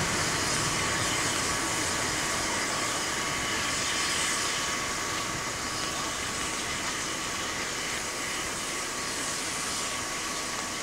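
A train running on the rails, a steady rushing rumble that slowly fades as it draws away, with a faint steady high whine through it.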